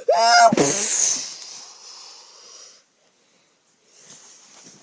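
A child's short voiced cry, then a long hiss breathed out through the mouth that fades away over about two seconds, a child imitating a Minecraft creeper's hiss.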